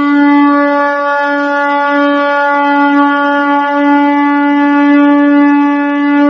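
A single loud, horn-like note held at one steady pitch throughout, rich in overtones.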